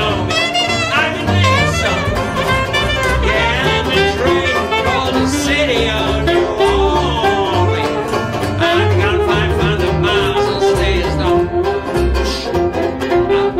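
Saxophone playing a melody line over strummed banjo and double bass, a small acoustic band in an instrumental passage.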